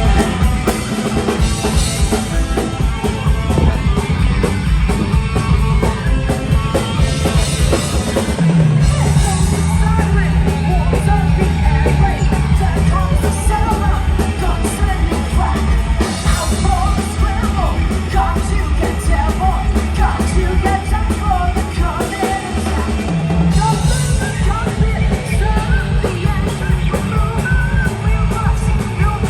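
Live rock band playing, with drum kit, bass and yelled singing. The bass comes in heavily about a third of the way in, under recurring cymbal crashes.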